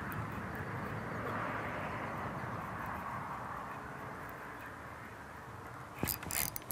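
Steady outdoor background hiss, with a few sharp clicks about six seconds in.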